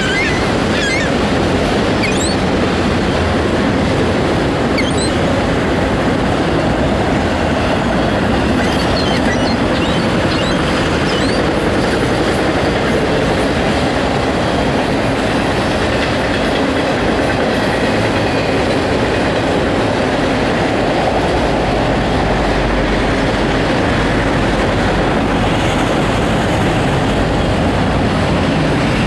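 Autorack freight cars rolling past, a steady loud rumble and rattle of wheels on rail. A few brief high-pitched wheel squeals come in the first third.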